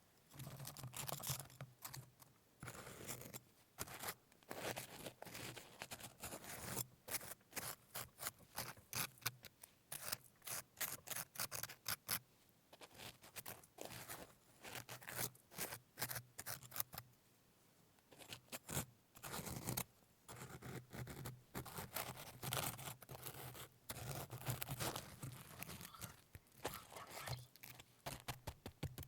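Close-miked rapid scraping and crunching of a hardened, baked salt crust being broken and dug away from the pork, in quick clusters of strokes with brief pauses about twelve and seventeen seconds in.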